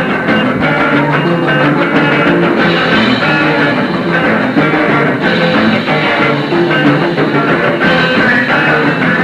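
Rock band playing live, with electric guitars, bass and drums, recorded on cassette tape.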